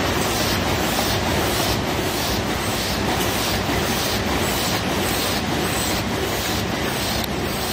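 Paper cup forming machines running: a steady mechanical clatter with a regular beat a little over twice a second.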